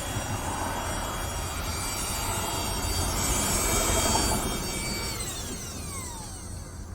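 Vacuum cleaner motor running with a steady whine and rush of air, then switched off about five seconds in, its whine falling in pitch as the motor winds down.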